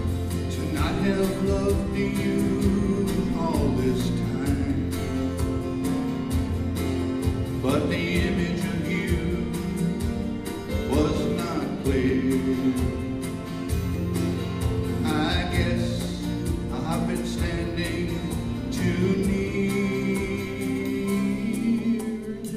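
Live country-rock band music: acoustic guitar strumming over a steady bass line, with a lead melody above that slides up and down between notes.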